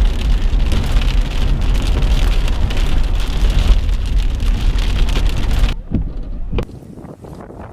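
Heavy storm rain and wind, loud and steady, with a deep rumble of wind buffeting the microphone. About six seconds in it cuts off abruptly to a much quieter wind hiss with a few light taps.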